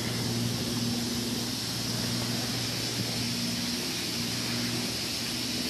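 Steady outdoor background hiss with a low, even hum underneath, the hum's upper line fading in and out.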